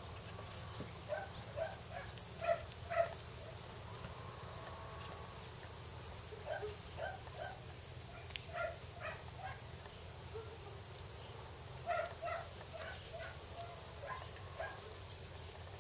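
Five-week-old puppies yipping and giving small high barks while they play-wrestle, the calls coming in short clusters with pauses between.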